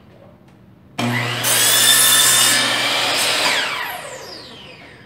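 Compound miter saw started about a second in, its motor whine rising as the blade spins up, then cutting through two wooden scrap strips at once. The trigger is released and the blade winds down with a falling whine.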